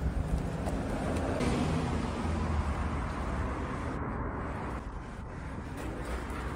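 City street ambience: a steady rumble of road traffic. It drops away abruptly about four seconds in.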